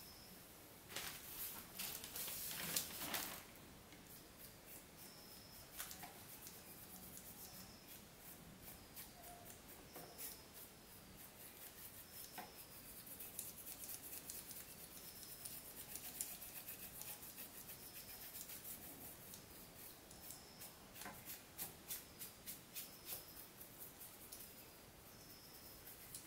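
A laptop's bottom cover rubbing and scraping against the chassis as it is worked off, loudest for about two seconds near the start, followed by faint clicks and handling noise.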